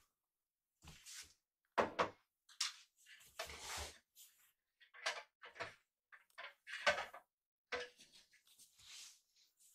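Two young kittens scuffling and play-fighting on fleece bedding: irregular soft rustles and light thumps, the loudest about two seconds in and again about seven seconds in.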